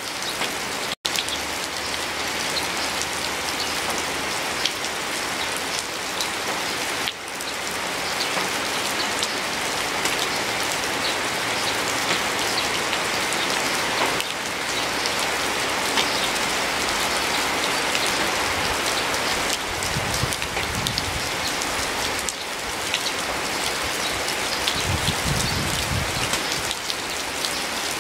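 Steady rain falling, with many close, crisp drop taps over an even hiss. There is a momentary dropout about a second in, and two brief low rumbles in the second half.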